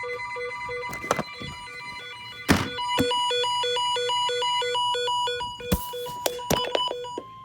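Several electronic weather alert alarms going off at once for a warning: rapid beeps alternating between two pitches, about three to four a second, over steady high tones, with a few sharp clicks. Near the end the pulsed beeping stops and a single steady alert tone sounds.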